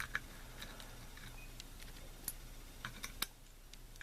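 Light, irregular clicks and ticks of small key pins and tools being handled while loading the pins into a 5-pin lock.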